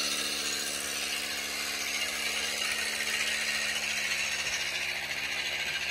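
A machine running steadily: a constant low hum with a hiss above it that holds at one level throughout.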